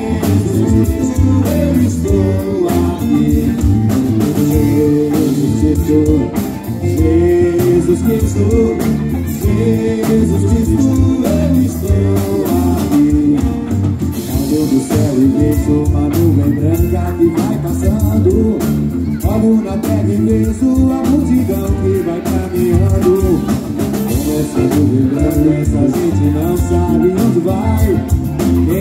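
Live band playing a song on stage, amplified through the PA: sung vocals over electric guitar, bass guitar, drums and keyboard.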